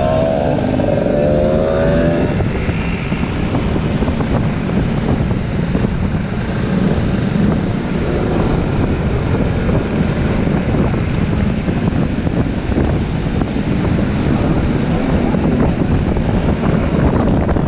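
Riding noise from a Honda Forza 300 scooter: its single-cylinder engine running under a steady, heavy wind rumble on the camera's microphone, with traffic around. A wavering engine note stands out in the first two seconds.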